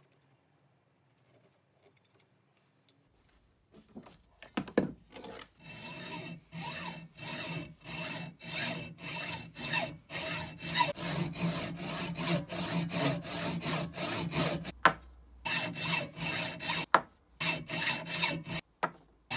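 Hand hacksaw cutting through a 25 mm aluminium rod clamped in a vise, in steady back-and-forth strokes about two a second with a faint metallic ring. The first few seconds are near silent, with a few light taps before the sawing starts, and the strokes stop briefly twice near the end.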